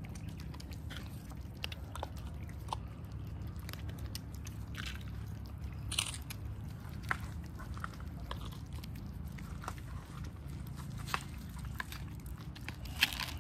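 Several cats eating wet food and dry kibble from a plate: steady chewing with scattered sharp clicks and crunches, the loudest about six seconds in and near the end, over a low steady background rumble.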